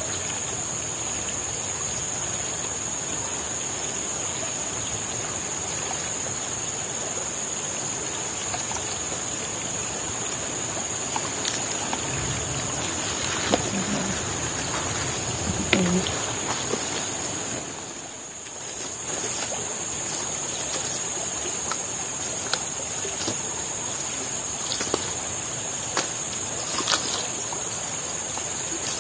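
Steady rush of a large river with a steady high-pitched drone above it. Over it come wet squelching, dribbling and a few small splashes and knocks as grated coconut and torch-ginger fruit are squeezed by hand into coconut milk in a plastic bowl and the liquid is poured into a pan.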